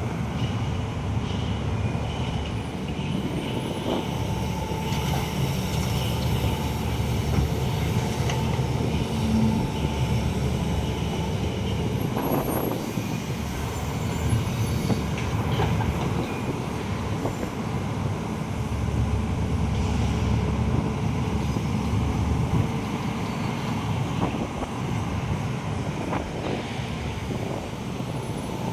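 Excavator's diesel engine running steadily, with occasional sharp metallic knocks.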